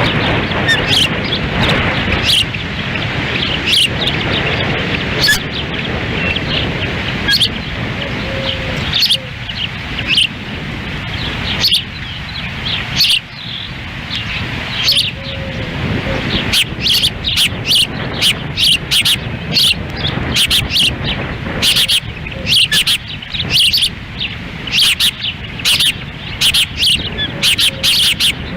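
Ospreys giving repeated short, high chirps, coming faster and in quick runs in the second half, over a steady low rumble of wind on the microphone.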